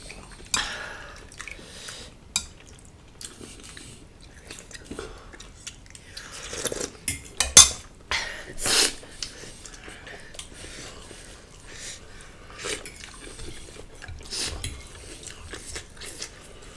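Forks and spoons clinking and scraping on plates and steel pots, with chewing in between; a couple of louder knocks come about halfway through.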